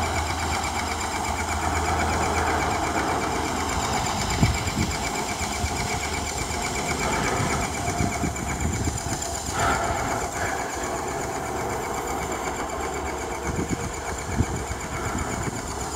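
Small engine running steadily at a constant speed, with a brief knock about four seconds in.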